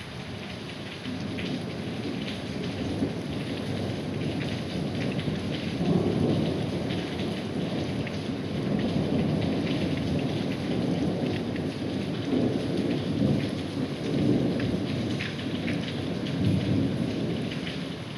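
Heavy rain falling steadily with a long roll of thunder rumbling through it, swelling several times and easing off near the end.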